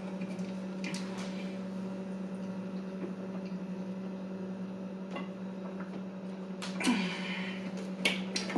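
Close-up eating sounds of someone chewing a small burger, with a few short mouth clicks and smacks, the loudest near the end, over a steady low hum.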